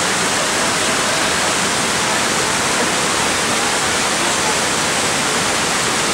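Waterfall rushing in a loud, steady, even roar of falling water.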